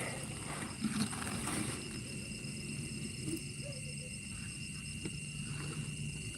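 Insects chirring in a steady high drone, with a faint fast pulsing in it, and a couple of soft low knocks about a second in.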